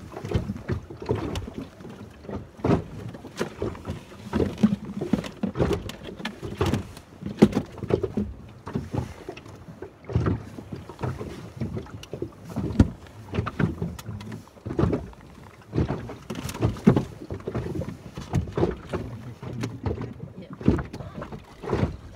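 Water slapping against the hull of a small boat as it rocks, with irregular thumps and wind buffeting the microphone.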